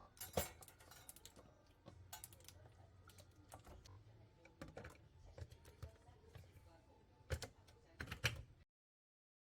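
Scattered light clicks and knocks at uneven intervals, as of small objects being handled, with a few sharper knocks near the end; the sound cuts off abruptly to dead silence shortly before the end.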